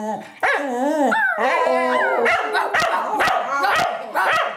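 Cocker spaniel howling, its pitch wavering up and down, then breaking into a quick run of short yips and barks in the second half.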